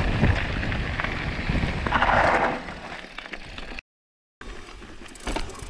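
Wind and rolling rumble on a mountain biker's action-camera microphone, with a few light clicks. The sound cuts out completely for about half a second just before four seconds in, and comes back quieter.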